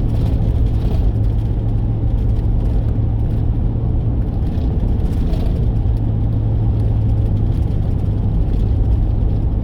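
Car driving at steady speed: an even, low engine and road hum with no change in pace.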